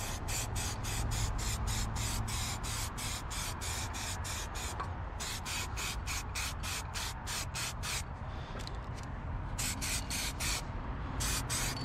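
Aerosol spray can of satin black paint hissing as it is sprayed in long passes, with short breaks between passes.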